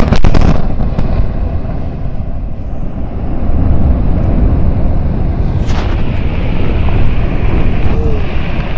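Explosion sound effect: a few sharp cracks, then a heavy, steady low rumble with another crack about six seconds in, cutting off suddenly at the end. The real open-cast mine blast was not picked up by the microphone.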